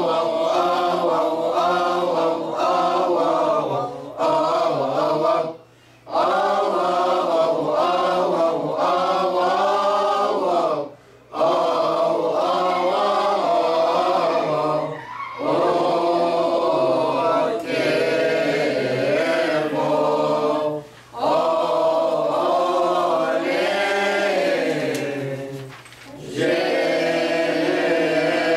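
Mixed choir of men and women chanting a Coptic church hymn together, unaccompanied, in long held phrases broken by short breath pauses about every five seconds.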